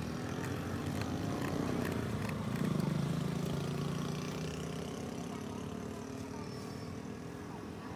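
An engine running steadily, growing louder about three seconds in and easing off again.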